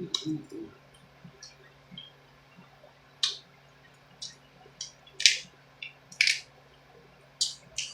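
Close eating sounds: about eight short wet smacks of lips and mouth while chewing seafood, spread through the second half, over a faint steady hum.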